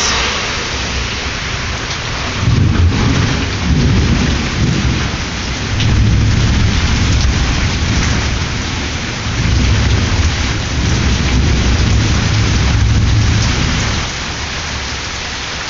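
Heavy rain pouring down with a steady hiss. Thunder rumbles in long rolls from a few seconds in, swelling and easing, and dies away near the end.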